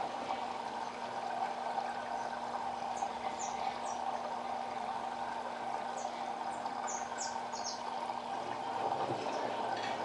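LG WD12596 front-loading washing machine running a rinse-only program: water washing around the drum with a steady hum that stops near the end. A few short, high bird chirps sound over it.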